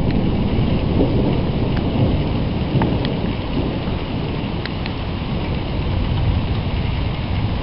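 Low rumbling thunder rolling on without a break, with a few faint ticks over it.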